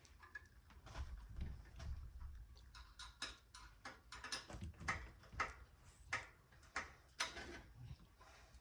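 Irregular clicks and light knocks of bicycle mudguard parts and fittings being handled and fitted, coming thickest in the middle of the stretch.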